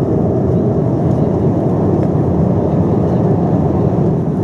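Steady low rumble of cabin noise inside a Boeing 777-200ER airliner, with no distinct events.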